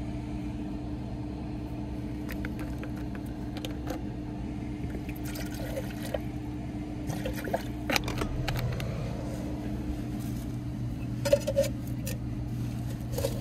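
Water poured from a plastic bottle into a metal camp-stove pot about five seconds in, with handling clicks and light knocks of the pot being fitted to the stove near the end. A steady low hum runs underneath throughout.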